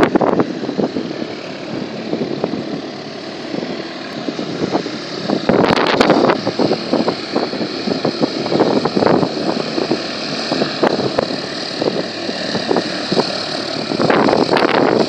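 Cessna 172 light aircraft taxiing closer, its piston engine and propeller running at low taxi power, getting louder near the end. Gusty wind buffets the microphone throughout.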